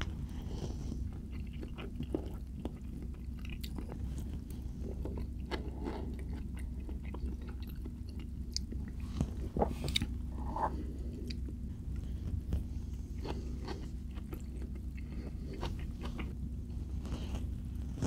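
A person chewing and biting close to the microphone, eating enchiladas with crisp tortilla edges: wet chewing with many small, scattered crunches and mouth clicks over a steady low hum.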